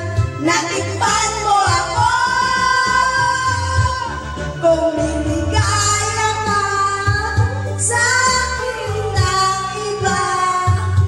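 Women singing a pop song over backing music with a steady bass beat, with long held notes.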